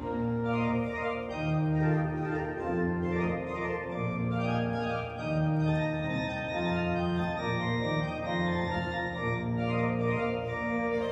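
Organ music: slow, long-held chords over a bass line that steps from note to note.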